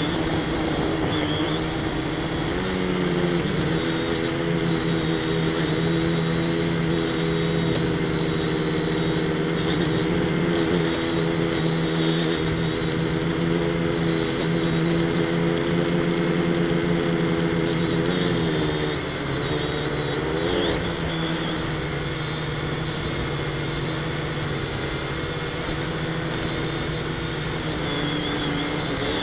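F183DH toy quadcopter's electric motors and propellers buzzing steadily in flight, heard from the drone's own onboard camera. The pitch rises about three seconds in, then dips and climbs again around twenty seconds in as the throttle shifts.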